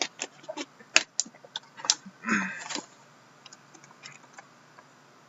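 Hands handling a trading-card box and its packs: a quick run of sharp clicks and taps, a short rustle a little over two seconds in, then a few faint ticks.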